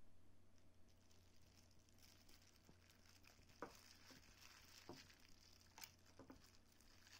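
Faint crinkling of a thin plastic disposable glove and soft wet tearing as a hand pulls apart a cooked whole chicken, with a few small clicks along the way.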